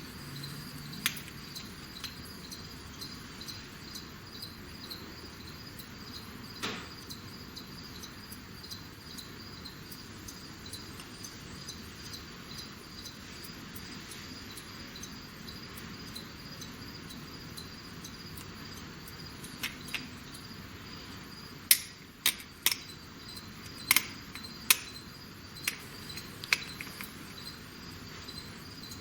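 Crickets chirping steadily, with scattered sharp metallic clicks and taps from small gearbox parts being handled; a quick run of louder clicks comes in the last third.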